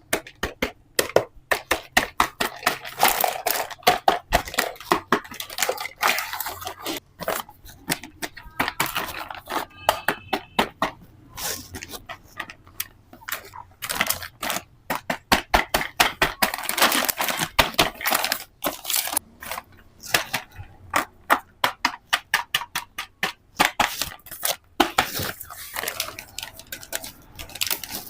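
Plastic toy kitchen pieces and packaging being handled: a dense, irregular run of clicks, taps and crackles.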